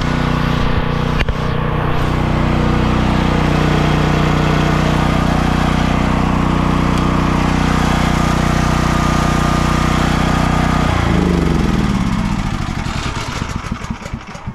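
Champion dual-fuel portable generator's engine running steadily, then shut off about eleven seconds in, its pitch falling as it coasts to a stop.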